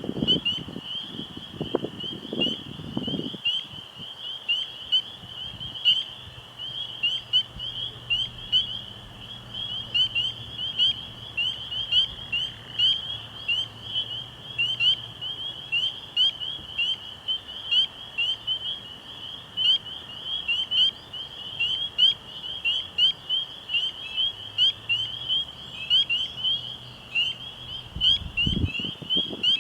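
A nighttime chorus of frogs, many high, short peeps repeating rapidly and overlapping without a break. Low gusts of wind rumble in the first few seconds and again near the end.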